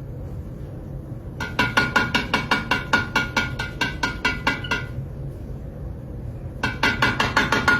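A cockatiel tapping its beak rapidly against a hard object that rings faintly, about five taps a second. There are two runs of tapping: a longer one, then after a pause of about two seconds a shorter one near the end.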